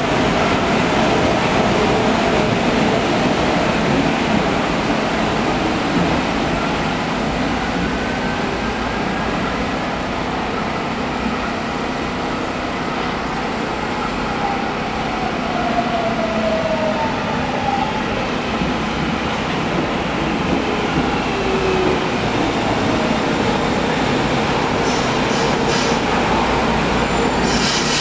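Brasília Metro electric train running on the track: a steady, loud rail rumble with faint gliding motor whines in the middle and short high-pitched bursts around the middle and near the end.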